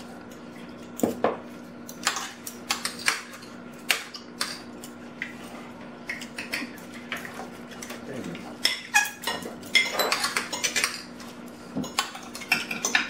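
Spoons and forks clinking irregularly against plates and bowls as people eat, over a steady low hum.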